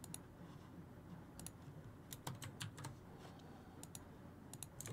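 Faint typing on a computer keyboard: a dozen or so soft, irregular key clicks, some in quick runs, over quiet room tone.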